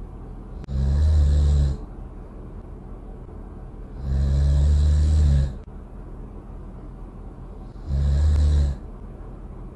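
Loud snoring: three snores about three and a half seconds apart, each lasting about a second, the middle one the longest, with a steady low hum between them.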